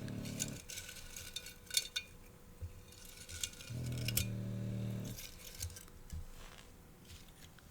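A sleeping puppy snoring in low, steady drones about a second long, twice, some four seconds apart. Scattered sharp little clicks and handling noises sound between the snores.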